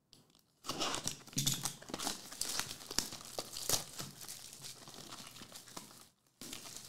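Plastic shrink wrap being torn and crinkled off a sealed Optic Fast Break basketball card box, a dense crackle with many small snaps starting about half a second in and pausing briefly near the end.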